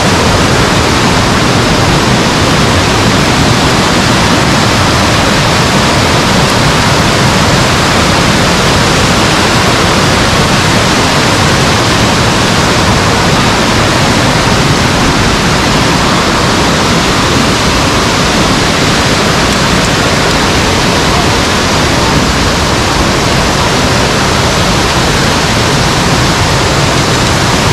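Waterfall: a loud, steady rush of falling water that does not change throughout.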